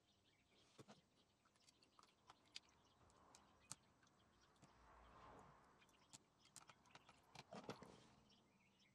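Near silence with faint, scattered small clicks and crackles, a little busier near the end.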